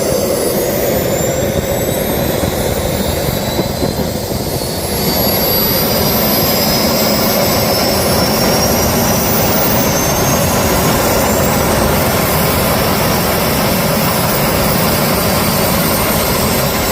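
Jet engine spooling up with a high whine rising in pitch over the first few seconds, getting louder about five seconds in, then running steadily with its whine and roar. It is a test run of an engine that shows signs of a crash, a bent bracket and a bolt sheared out of the housing.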